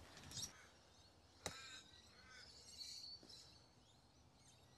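Near silence: faint outdoor ambience with a few faint bird chirps, and a single sharp click about one and a half seconds in.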